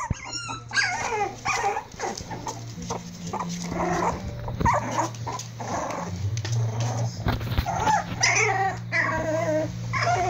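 Four-week-old Prague Ratter puppies at play, giving a continual run of short, high calls that rise and fall in pitch.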